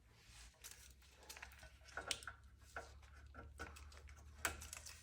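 Faint rustling and small scattered clicks of plow-controller wiring pigtails being handled and worked into place, over a steady low hum.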